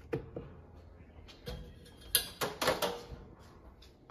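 Two clicks as a control knob on a KitchenAid KFEG500ESS electric range is turned, then the oven door being opened. The door makes a run of sharp knocks about two seconds in, the loudest part.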